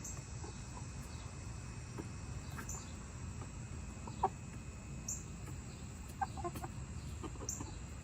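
Backyard chickens clucking softly: a few short, separate clucks, one about four seconds in and a cluster just past six seconds. A faint high chirp repeats about every two and a half seconds over a low steady outdoor background.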